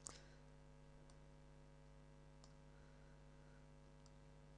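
Near silence: a steady low electrical hum, with a few faint clicks, the first and sharpest right at the start.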